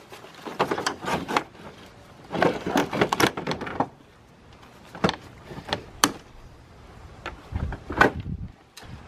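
A plastic radiator fan shroud being wrestled out of a car's engine bay: irregular clattering knocks and scrapes of plastic against metal, with a louder knock near the end.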